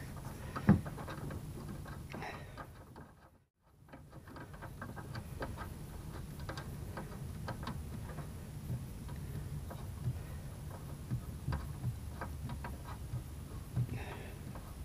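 Small metal clicks and taps of nuts and washers being fitted by hand onto the bolts of a motorhome water tank's mounting bracket, scattered and irregular, with one sharper click about a second in. A brief drop to near silence comes a few seconds in.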